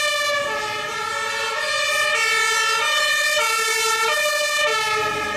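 German fire engine's two-tone siren (Martinshorn) sounding, alternating between a high and a low tone.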